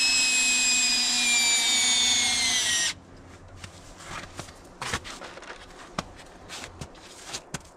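Cordless DeWalt drill running under load as it drives a carbide traction stud into a rubber skid-steer track block. Its whine sags slightly in pitch as the stud seats, and it stops abruptly about three seconds in. A few light clicks and knocks follow.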